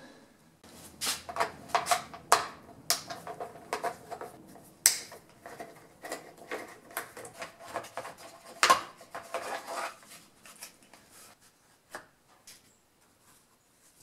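Irregular clicks, knocks and rattles of the plastic top cover being worked loose and lifted off a Poulan Pro chainsaw by hand, mostly in the first ten seconds, with one more click near the end.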